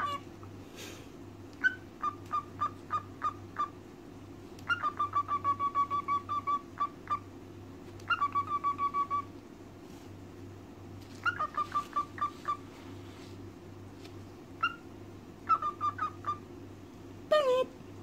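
Cockatiel chirping in quick runs of short notes at one even pitch, several bursts of six to a dozen notes with pauses between, and a falling call near the end.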